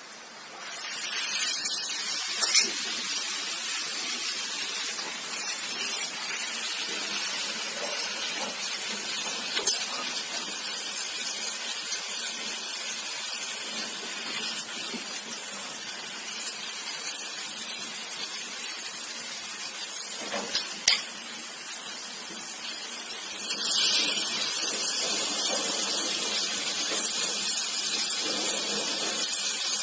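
Oxy-fuel brazing torch hissing steadily while heating the pipe joints of an air conditioner's four-way reversing valve to unbraze it. A few sharp clinks sound over it, and the hiss grows louder about three quarters of the way through.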